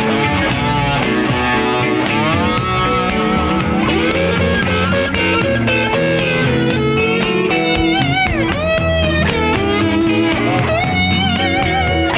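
A band playing an instrumental break: a lead guitar solo with notes that bend up and down, over bass and a steady drum beat.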